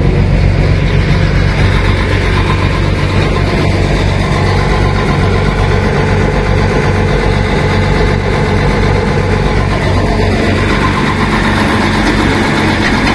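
Heavy truck's diesel engine idling steadily with an even low throb.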